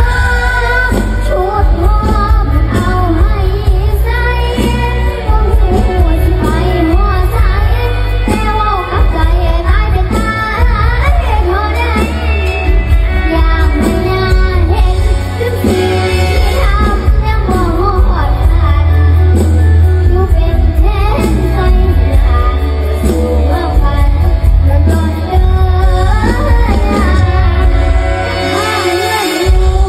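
Music: a female voice singing over a backing track with a heavy bass, in the style of Thai mor lam.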